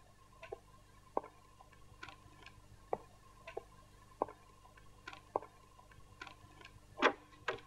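Sparse light ticks and clicks in a quiet room, irregularly spaced at about one or two a second, over a faint steady hum. A slightly longer, louder rustle-like sound comes near the end.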